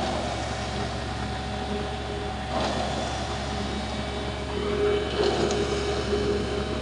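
Concrete mixer truck's engine running steadily while its drum turns and discharges concrete down the chute, with brief louder noisy surges about two and a half and five seconds in.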